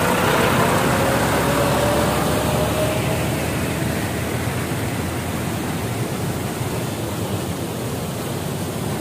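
Fast water rushing steadily down a concrete irrigation channel, a loud even noise. A faint rising hum sits under it over the first three seconds.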